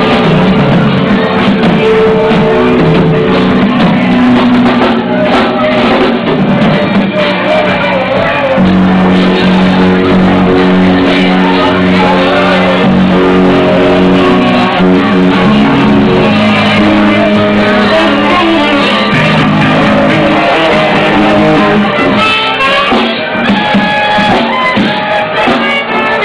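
Live seven-piece band with a singer, electric guitar, bass, drums, keyboards, trumpet and saxophone, playing loudly with long held notes.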